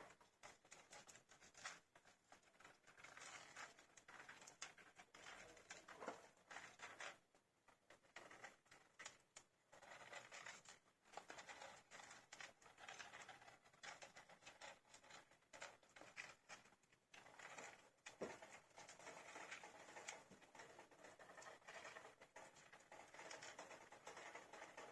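Faint squeaking of a litter of 15-day-old hamster pups, mixed with dense small scratching and rustling as they move about.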